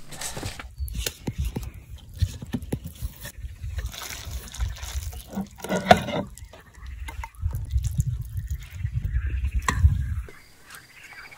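Liquid sloshing and dripping among scattered clicks and knocks, over a low rumble that cuts off suddenly about ten seconds in.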